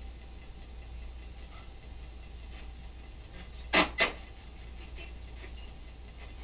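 Two quick, sharp taps or knocks about a quarter second apart, a little under four seconds in, over a steady low hum.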